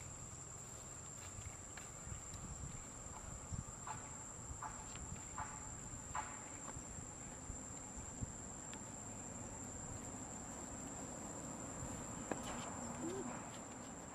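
Steady high-pitched insect drone from the surroundings, with about four short, faint chirps a few seconds in.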